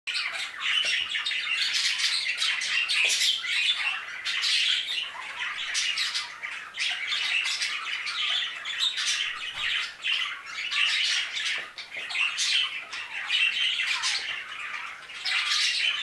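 A flock of budgerigars calling together: a dense, unbroken chatter of many short, high calls overlapping one another.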